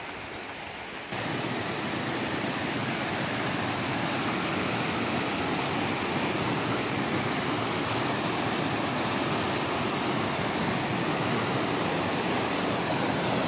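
Rushing water of the Druise stream tumbling over boulders, a steady even roar. It comes in abruptly and much louder about a second in, then holds steady.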